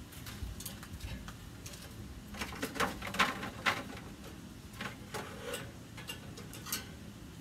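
Metal grill grates and an aluminium foil drip tray clinking and rattling as they are handled, in short irregular clicks that are busiest from about two to four seconds in.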